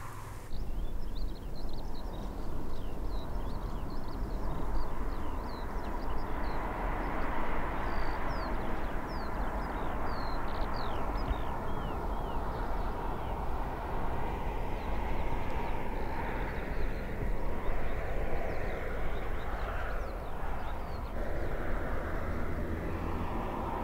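BMW 2 Series Convertible driving past with a steady rush of road noise. Many short, falling bird chirps sound over it during roughly the first half.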